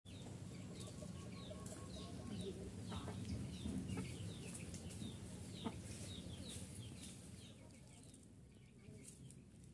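Chickens clucking, with a run of short, high, downward-sliding chirps that thin out after about seven seconds.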